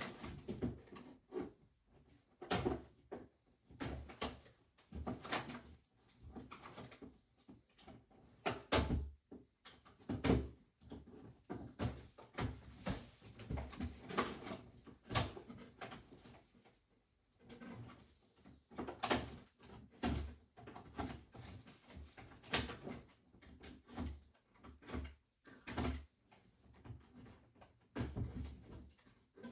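Small plastic toy packaging being handled and opened by hand: a busy, irregular run of clicks, knocks and rustling.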